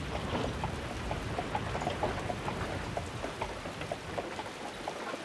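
Rain sound effect from an anime episode's soundtrack: a steady downpour with many small scattered drips.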